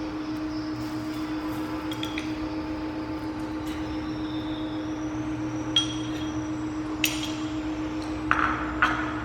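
Steady hum with a few sharp metallic clinks, like a utensil tapping cookware; the loudest come as a quick cluster near the end.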